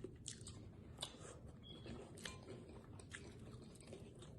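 Faint chewing of deep-fried, Hot Cheeto-coated frog legs, with a few soft crunches scattered through.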